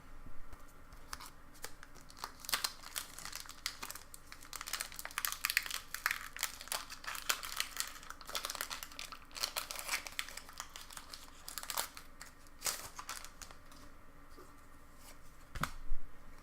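Foil booster-pack wrapper crinkling and being torn open by hand, a dense crackle lasting about twelve seconds that then dies down. A single sharp knock near the end is the loudest sound.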